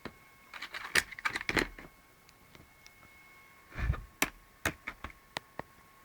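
Irregular clicks, taps and short rattles of small hard objects being handled, bunched in a flurry near the start and another a few seconds later, over a faint steady high tone.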